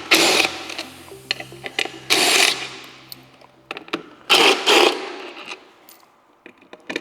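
Power driver spinning out the stock amplifier's mounting bolts in three short bursts, the last a quick double burst.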